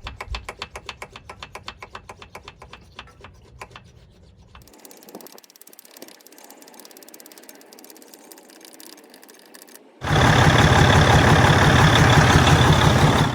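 Quick rhythmic clicking of a diesel fuel system's hand primer pump being worked up and down, several strokes a second, fading out. About ten seconds in, the Detroit DD15 inline-six diesel is heard running, loud and steady at idle, after being primed.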